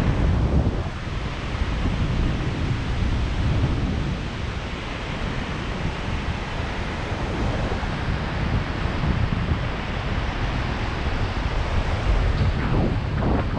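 Wind buffeting the microphone: a loud, steady low rumble that swells and eases with the gusts.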